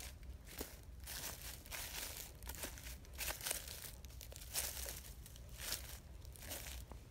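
Footsteps crunching and rustling through dry fallen leaves, an uneven step about every half second to second.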